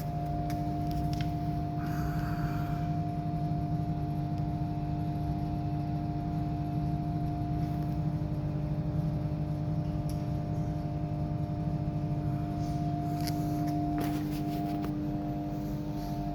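Blower fan of a fan-assisted pellet stove running with a steady hum, with a few light clicks near the end.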